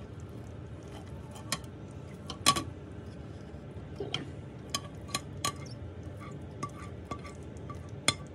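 A ceramic plate and a silicone spatula clinking and knocking against a slow cooker's crock as shredded chicken is scraped off the plate into it. There is a scattered series of sharp clinks, some with a brief ceramic ring, and the loudest comes about two and a half seconds in.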